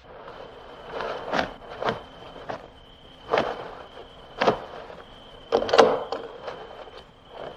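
A cricket trilling in one steady high tone, under a string of about eight irregular sharp knocks, the loudest a little before the end.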